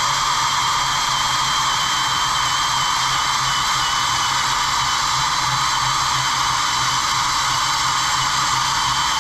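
Angle grinder running steadily as it cuts through steel, a constant hiss with a thin high whine from the motor.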